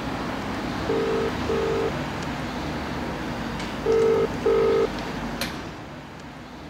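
A telephone ringing in the British double-ring pattern: two double rings about three seconds apart, the second louder. Steady street noise runs underneath, and a single sharp click comes near the end.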